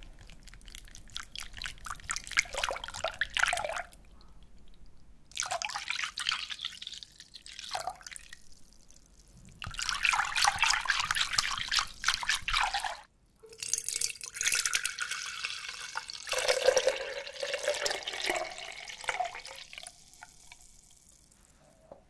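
A silicone-coated balloon whisk stirring liquid chocolate milk in a glass bowl: wet sloshing and fine rapid clicking of the wires, in several bursts of a few seconds with short pauses between.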